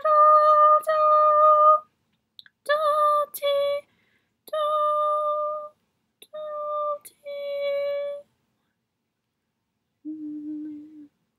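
A woman singing solfège syllables unaccompanied, in a small room. She holds a series of about seven notes at nearly the same pitch with short breaks between them, then sings one lower note about an octave down near the end.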